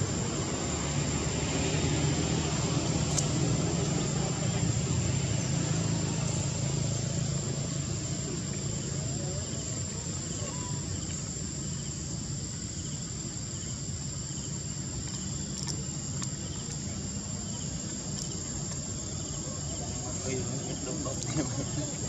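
Insects droning steadily at a high pitch in tropical forest, over a low background rumble that is louder in the first half.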